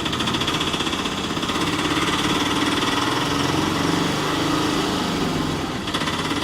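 Auto rickshaw's small engine running steadily with a rapid, even pulse.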